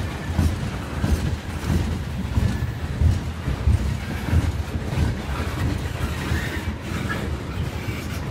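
CSX freight train's cars rolling past close by: a steady low rumble with irregular thumping of the wheels on the rails.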